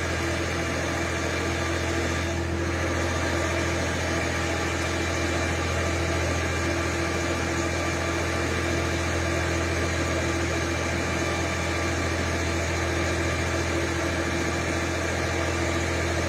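An engine running steadily at a constant speed, a continuous low hum with no change.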